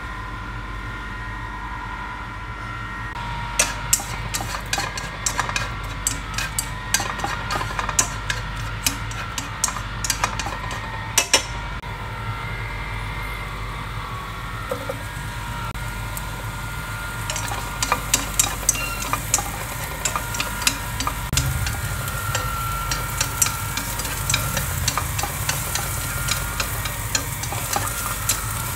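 Sliced onions, shallots and garlic sizzling in oil in a nonstick frying pan while chopsticks stir them, tapping and clicking against the pan in runs of quick clicks. The sizzle grows stronger about halfway through, over a steady low hum.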